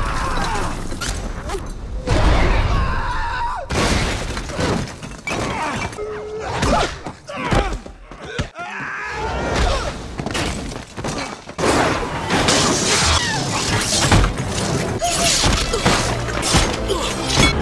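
Film fight-scene sound effects: a rapid string of hard body impacts, crashes and shattering debris, over a dramatic film score.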